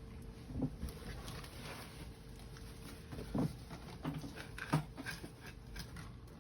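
Hand tools and metal parts handled at an oil burner's filter housing: scattered clicks and a few knocks, the loudest about three and a half and nearly five seconds in.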